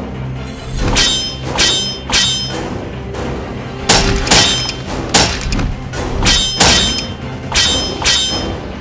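Metallic sword-clash sound effects: about a dozen sharp ringing clangs in quick succession, over a background music score.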